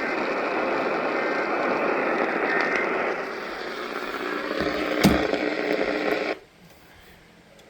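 AM radio static, a steady hiss from a weak station, with a sharp click about five seconds in; the static cuts off abruptly a little after six seconds.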